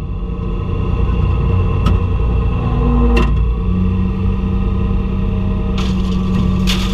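International tractor engine running steadily while pulling a round baler, with a couple of sharp clicks and a brief rattle near the end.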